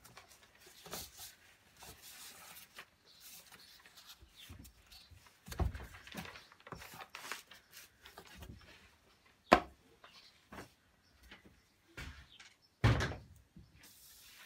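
Handling noise as a soap slab is worked out of its mould liner on a wooden base board: faint rustling with a few scattered dull thuds, a sharp click about nine and a half seconds in, and a heavier thud near the end.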